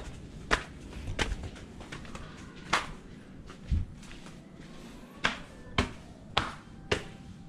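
Footsteps in flip-flop sandals slapping on stone steps and tiled floor: sharp slaps, irregular at first, then about one every half second, with one heavier thud a little before the middle.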